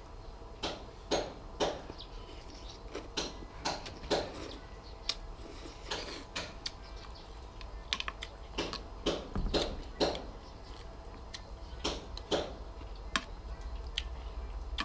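A person eating suki soup: a run of short, irregular clicks and smacks, a few each second, from chewing and from a spoon and chopsticks on a ceramic plate.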